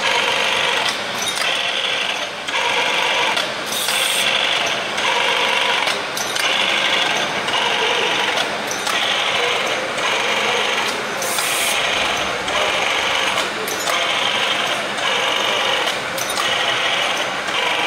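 Automatic sheet-metal tapping machine running its cycle: the tapping spindle whirs in short bursts that stop and restart a little over a second apart, with two brief hisses of air.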